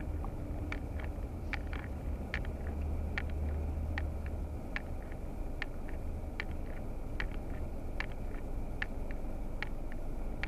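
A car's turn-signal indicator ticking steadily, a tick-tock pair about every 0.8 seconds, over the low hum of the engine and road heard from inside the cabin.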